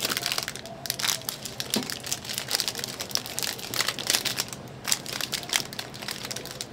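Dense, irregular crinkling and crackling of something being handled, with many sharp clicks.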